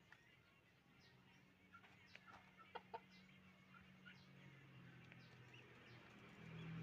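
Chickens clucking faintly: many short, scattered calls, a few louder ones about halfway through, over a low steady hum.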